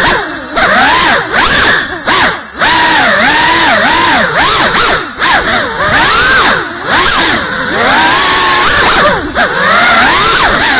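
GEPRC CineLog 35 cinewhoop's brushless motors and ducted propellers whining, the pitch swooping up and down with quick throttle changes and dropping away briefly several times as the throttle is chopped. Loud, heard through the onboard RunCam Thumb Pro's microphone.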